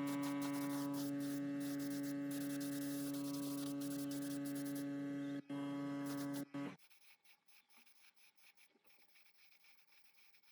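A steady electrical hum with many overtones that breaks off briefly twice and then stops about two-thirds of the way through.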